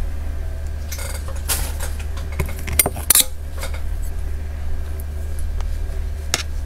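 Several sharp clicks and clacks of a clear plastic cake mould being handled and a metal spoon knocking against the cake plate, the loudest about three seconds in. A steady low hum runs underneath.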